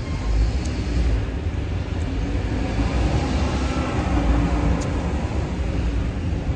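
City street traffic: a continuous low rumble of passing vehicles with a broad haze of noise that swells a little midway through.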